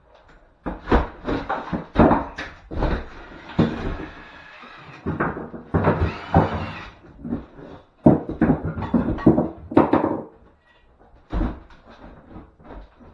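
Wooden boards being prised and pulled off a wall: irregular knocks and thuds of timber, several in quick succession, with quieter gaps in between.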